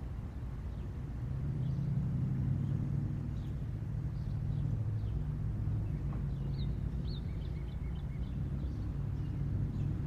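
Low steady outdoor rumble that grows a little louder about a second and a half in, with a small bird chirping several times just past the middle.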